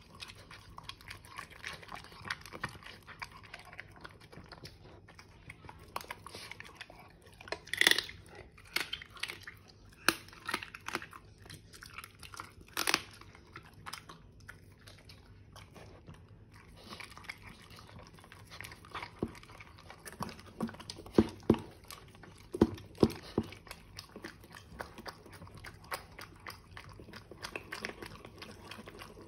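A small dog eating raw food from a stainless steel bowl: steady chewing, licking and crunching, with scattered sharp clicks and knocks, several of them louder, in a cluster about two-thirds of the way through.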